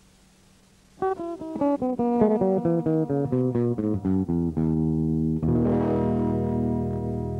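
Short musical ident played on a plucked, guitar-like instrument: about a second in, a fast run of picked notes starts, then gives way to held chords, a fresh chord sounding about five and a half seconds in.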